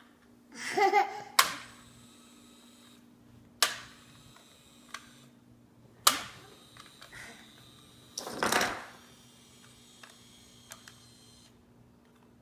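Toy trains being handled, with three sharp clacks spread over several seconds as they knock together. A young child makes a brief vocal sound about a second in, and there is a short rustling scrape around eight seconds in.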